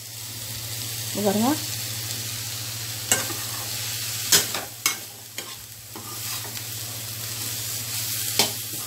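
Steel spatula stirring and scraping cauliflower poriyal in a metal kadai, over a steady sizzle of the frying vegetables, with a few sharp clinks of the spatula against the pan.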